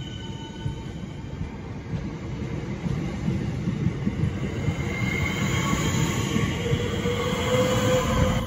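Electric multiple-unit trains running through the station: a steady rumble of wheels on rail that grows louder as a Southeastern Networker unit comes by on the nearer track, loudest near the end, with a faint rising whine.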